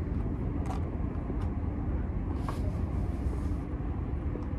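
Steady low outdoor background rumble, with a few faint clicks and a brief hiss about two and a half seconds in.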